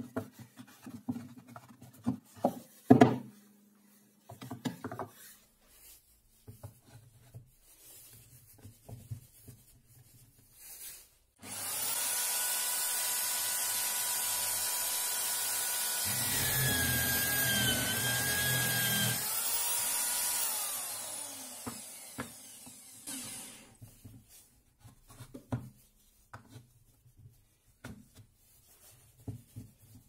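Electric drill in a wooden drill stand starts about a third of the way in and runs with a steady whine. Its pitch wavers and a low rumble comes in while the bit bores into the pine block. It then winds down and stops. Before and after, wooden blocks knock and rub as they are positioned in the jig.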